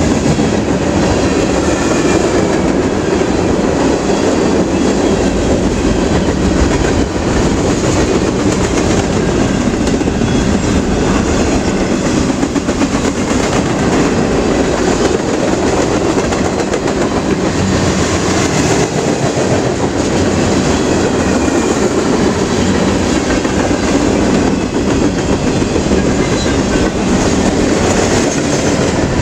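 Freight train cars rolling past, the wheels clattering steadily over the rail joints without a break.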